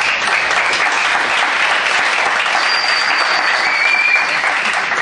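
Crowd applauding, a dense steady clapping, with a high whistle about two and a half seconds in.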